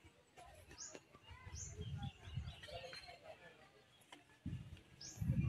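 Faint outdoor ambience with a few short, high bird chirps. Low rumbling bursts come and go and are loudest near the end.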